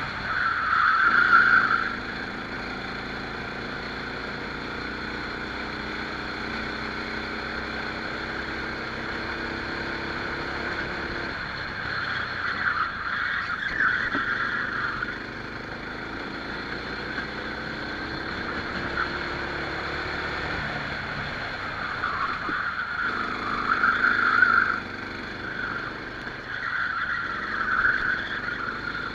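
Rental kart engine heard onboard during a race, its pitch rising and falling as the kart speeds up and slows for corners. Louder, higher-pitched rushing bursts come about a second in, near the middle, and twice near the end.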